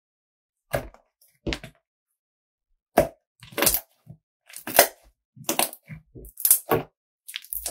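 Soft slime squeezed, folded and pressed by hand against a wooden tabletop. Each squeeze gives a short burst of sound, about eight in all, with silence between them.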